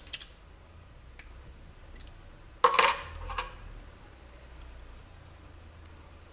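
Metal hand tools clinking against metal: a few light clicks at the start, then one louder metallic clatter about three seconds in, as a spanner and feeler gauge are handled while the engine's valve clearances are adjusted.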